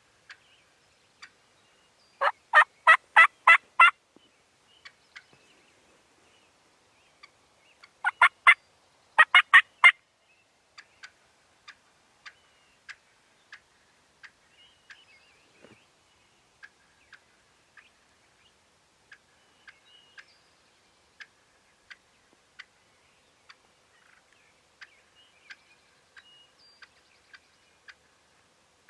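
Turkey yelps: a loud series of about seven evenly spaced notes, about four a second, a couple of seconds in, then two shorter runs of three notes each a few seconds later. Faint scattered chirps and ticks sound between them.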